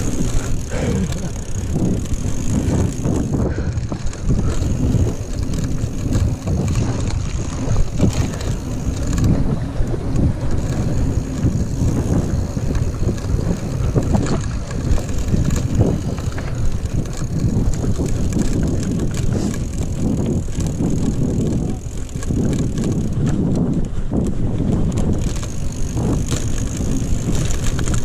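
Commencal Meta mountain bike rolling fast over a dirt trail: a continuous rumble of tyres on loose dirt, studded with frequent small knocks and rattles from the bike, mixed with wind buffeting the microphone.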